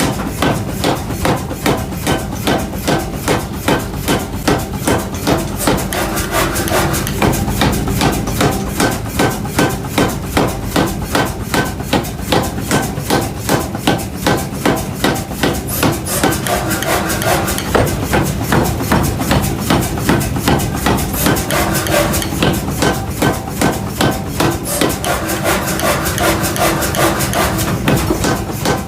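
Hammer blows on iron being forged, falling in a steady, even rhythm of about two strikes a second.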